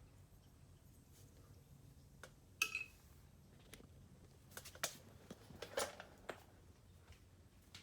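Scattered sharp clicks and taps from a Harley-Davidson Road Glide inner fairing vent and its latch parts being handled. The loudest click, about two and a half seconds in, rings briefly, and a cluster of smaller clicks follows past the middle.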